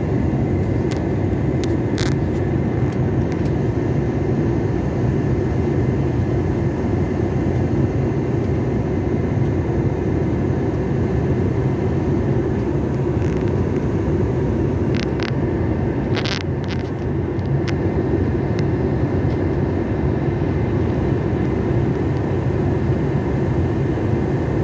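Steady engine and airflow noise inside an airliner cabin in flight, with a few faint clicks.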